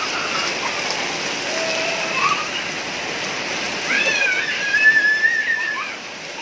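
Rain pouring down and splashing, with a long high-pitched cry that starts about four seconds in and holds for nearly two seconds. A few shorter cries come before it.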